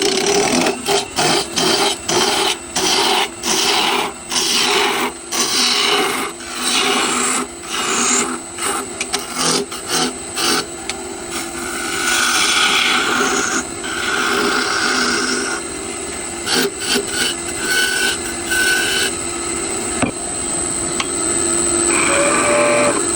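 Wood being cut with a hand-held tool, rasping and scraping. It comes as repeated strokes through the first half, then as longer, more continuous cutting over a steady hum.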